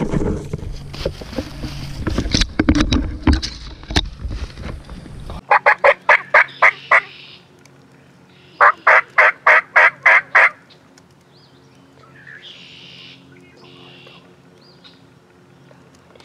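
Two runs of about eight evenly spaced turkey yelps, about four or five notes a second. Before them, a loud low rustling rumble with sharp clicks lasts about five seconds and stops suddenly. Faint high bird chirps follow.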